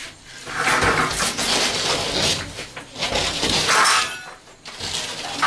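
Clattering and scraping of household belongings being shifted and moved about, in several bursts with short lulls between.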